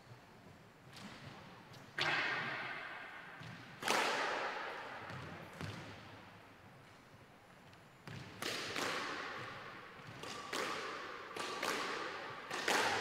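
Squash ball being hit back and forth: sharp cracks of racket on ball and ball on wall, each ringing on in the echoing court, irregular and a second or two apart, coming more often in the second half.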